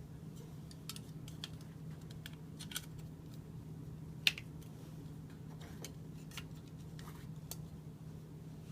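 Scattered light plastic clicks and small knocks as lamp sockets are handled and snapped onto a fixture's metal socket bar, one sharper click about four seconds in, over a steady low hum.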